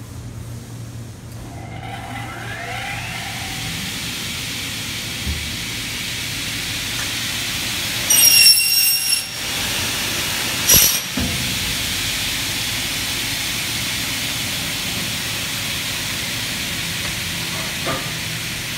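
Single-head aluminium cutting saw with a 450 mm blade spinning up about two seconds in, then running steadily. Around eight seconds in the blade bites through a 2 mm-thick aluminium profile with a loud, high ringing screech lasting about a second, followed by a sharp clack a couple of seconds later.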